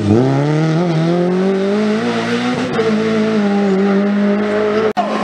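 Renault Clio rally car's engine revving hard through a corner: the pitch dips, then climbs as the car accelerates away and holds high and steady. It cuts off abruptly near the end, where a different engine takes over.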